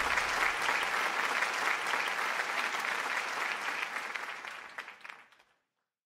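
Audience applauding, a dense patter of clapping that dies away and stops about five seconds in.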